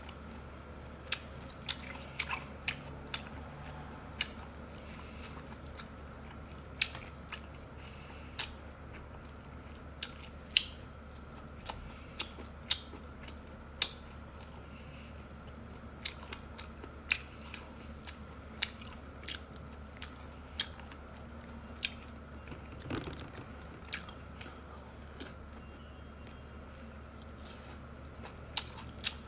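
A person chewing sea snail meat, with sharp clicks at irregular intervals, roughly one a second, over a faint low steady hum.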